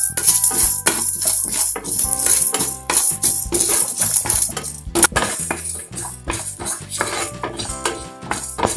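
Dry fenugreek seeds, cumin seeds and black peppercorns rattling, scraping and crackling across a nonstick pan as a spatula stirs them, dry-roasting without oil. Many quick clicks come in uneven bunches.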